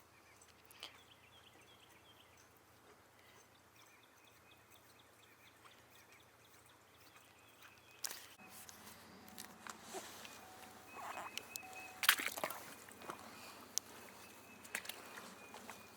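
Quiet outdoor ambience with faint, repeated short bird calls. From about halfway through come a few knocks and rustles of handling, the loudest about three-quarters of the way in.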